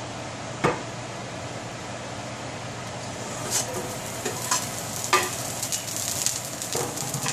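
Chopped garlic scraped off a wooden cutting board with a knife into hot oil in a cast-iron skillet, starting a high sizzle about halfway through, with several clicks and taps of the knife and board. There is a single sharp click about a second in.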